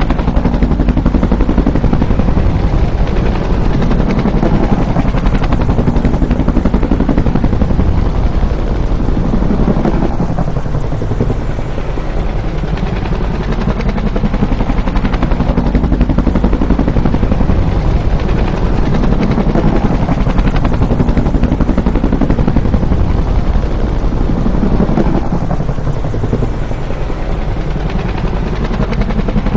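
Bell UH-1 Huey helicopter, its rotor running with a steady low thumping. The sound swells and sweeps in pitch twice, about fifteen seconds apart, like a repeated flyby.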